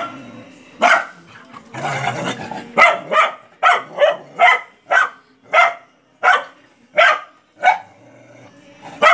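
A dog barking angrily in a long run of sharp barks, quickest in the middle and spacing out toward the end, with a rougher growling stretch about two seconds in.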